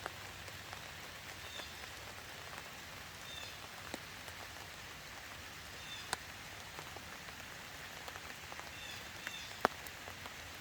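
Steady rain falling, with a few sharp ticks over it; the loudest comes about six seconds in and another near the end.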